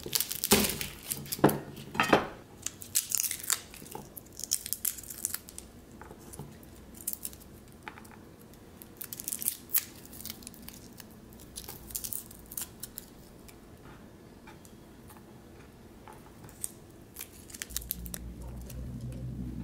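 Chef's knife cutting through a whole head of garlic on a wooden cutting board, with a few sharp cuts in the first couple of seconds. Then the cloves are broken apart by hand and their papery skins crackle and tear in small scattered bursts. A low hum comes in near the end.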